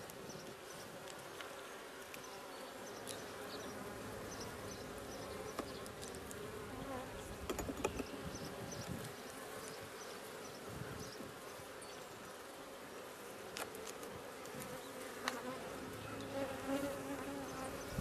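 Honey bees buzzing over an open hive: a steady hum of many bees. A few light clicks stand out, the loudest about halfway through.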